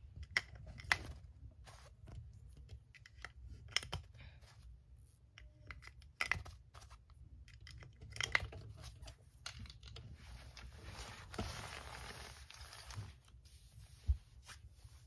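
Small plastic toy figure and playset pieces being handled and set down on a fabric sheet: scattered light clicks and taps, with a few seconds of rustling about ten seconds in and a duller knock near the end.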